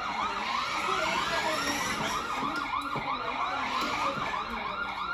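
Electronic siren from a child's ride-on toy police car's speaker, a fast repeating wail rising and falling about three times a second.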